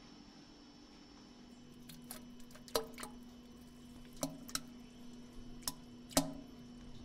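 Water dripping into a toilet bowl: about seven separate drops, each a sharp plink, some with a short ring after it, scattered over a few seconds. A steady low hum runs underneath.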